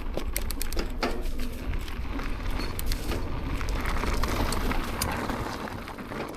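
Propain Tyee mountain bike rolling along a dirt trail: continuous tyre and ride noise over a low rumble, with scattered clicks and rattles.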